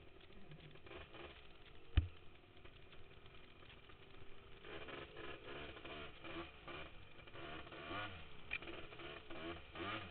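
Honda TRX250R quad's two-stroke single-cylinder engine running along a trail, revving up and down repeatedly in the second half. A single sharp knock sounds about two seconds in.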